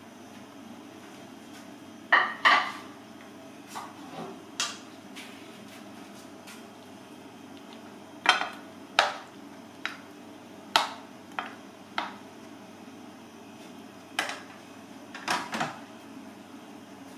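Utensil clinking and tapping against a frying pan and a ceramic plate as diced fried pineapple is served onto the plate. About a dozen sharp clinks come at uneven intervals, the loudest pair about two seconds in.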